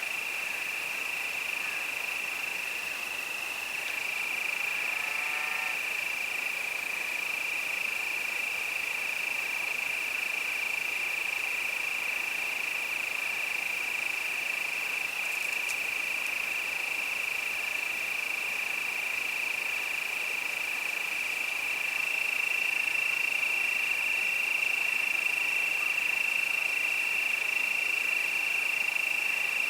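A chorus of crickets singing, a steady high continuous trill that grows a little louder about two-thirds of the way in. A brief, fainter call of stepped notes comes a few seconds in.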